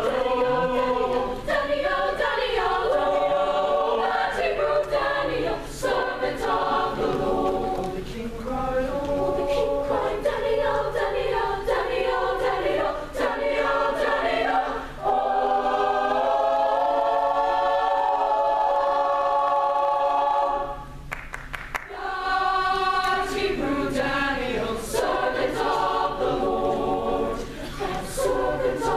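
Mixed choir of treble and male voices singing a cappella in full harmony. About two-thirds of the way through, a long held chord cuts off for a short pause, then the choir comes back in.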